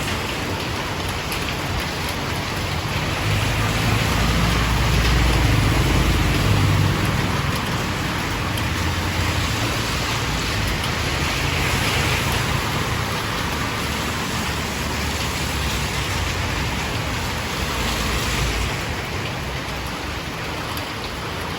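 Steady rain falling. A low rumble swells under it about four seconds in, peaks for a few seconds, and fades out near the end.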